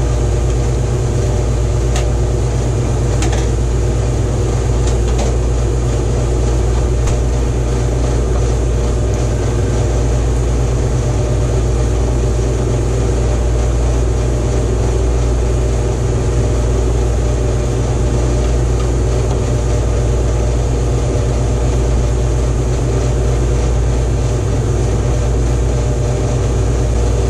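Loud, steady machine hum, low and even throughout, with a few faint clicks of metal hardware being handled in the first few seconds.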